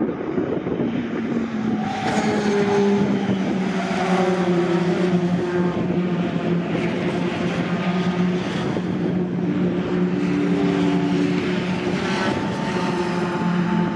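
A pack of racing pickup trucks at full race pace, several engines running hard at once. Their pitches overlap and shift as the trucks brake, change gear and accelerate through a corner.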